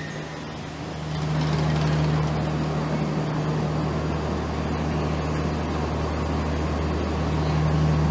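A train pulling slowly along the platform, its machinery giving a steady low hum that gets louder about a second in.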